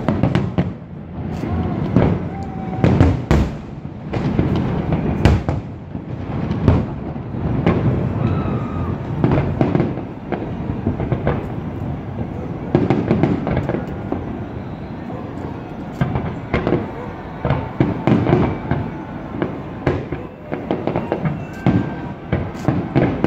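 New Year fireworks display: aerial shells going off in a dense, continuous string of bangs and crackles, several a second, with no pause.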